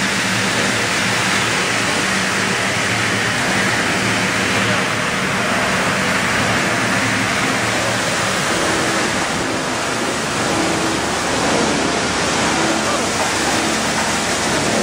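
PET bottle recycling line machinery running: a steady, loud mechanical noise with a low motor hum underneath.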